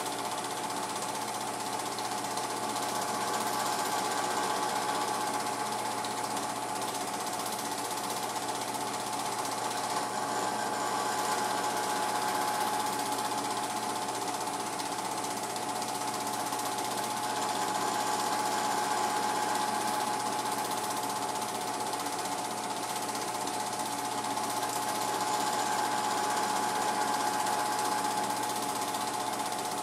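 Home-movie film projector running: a steady, rapid mechanical clatter from the film-advance mechanism with a steady whine over it, unchanging apart from slow swells in loudness.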